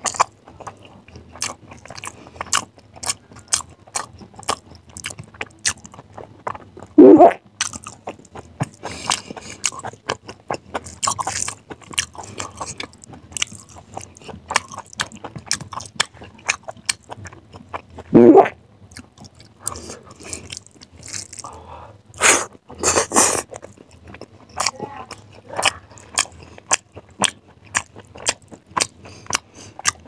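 Close-miked chewing of hand-fed rice and curry: a steady run of wet lip smacks and mouth clicks, with crunchy bites. Twice a louder, lower mouth sound stands out.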